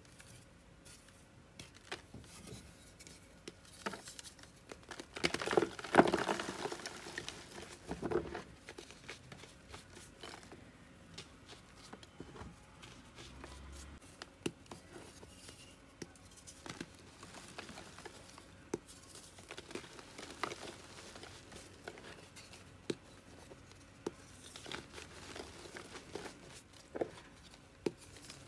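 Hands crushing a block of dyed gym chalk: many small crumbling crackles and snaps, with a louder crunch about six seconds in and another near eight seconds. Near the end the crumbled chalk powder is squeezed and rubbed between the fingers.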